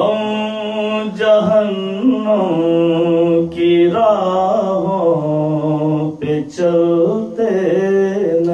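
A solo male voice chanting a melodic recitation, holding long notes that bend slowly in pitch, with a few short breaks.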